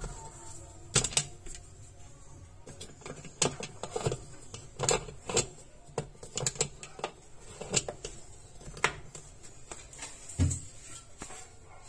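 Irregular sharp plastic clicks and knocks as a hand twists and handles the screw cap of the salt reservoir in the floor of a Maximus MAX-005V tabletop dishwasher's tub. A duller, deeper knock comes about ten and a half seconds in.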